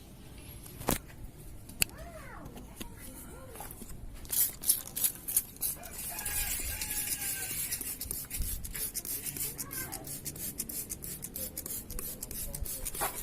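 Hand trigger sprayer squirting fabric-softener water onto a carpet, pumped over and over at a few quick squirts a second.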